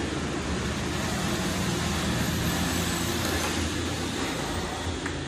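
Steady rumbling background noise with a low hum and hiss, and a faint click near the end.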